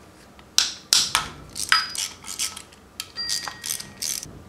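Metal clinks and clicks of a socket and quarter-inch ratchet being worked on the water pump bolts of a Subaru EJ25 engine: a string of irregular sharp clicks, a few ringing briefly.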